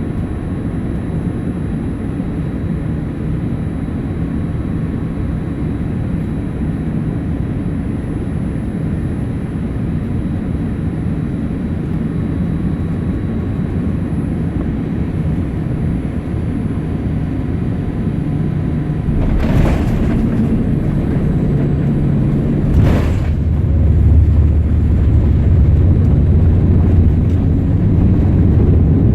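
Boeing 787-8 cabin with a steady hum from the GE GEnx-1B engines and airflow on final approach. Two sharp thumps follow each other about three and a half seconds apart, typical of the main gear and then the nose gear touching down. Both are followed by a heavier, louder rumble of the wheels rolling out on the runway.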